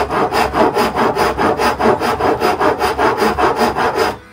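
A Sandvik Bahco wood rasp scraping across a strip of wood in quick back-and-forth strokes, about four a second. The strokes stop abruptly near the end.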